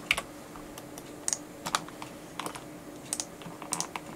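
Computer keyboard and mouse clicking: scattered single clicks, some in quick pairs, as objects are selected and removed with the Delete key.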